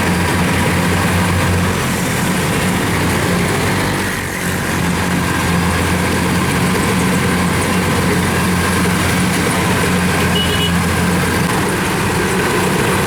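Heavy farm-machine diesel engine running steadily, with a constant low hum.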